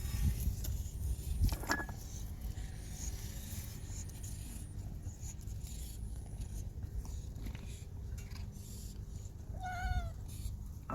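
A cat meowing: one short meow near the end, over a steady low rumble.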